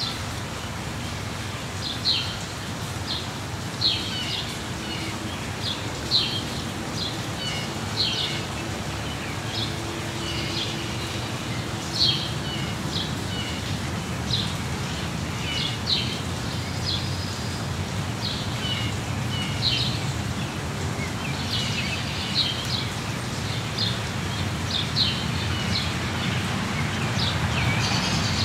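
Steady rain falling, with small birds giving short chirps every second or two over it. A low rumble builds near the end.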